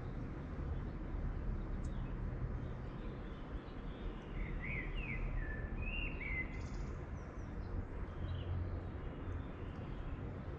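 Steady low rush of water, like waves, with a bird chirping several short calls about halfway through.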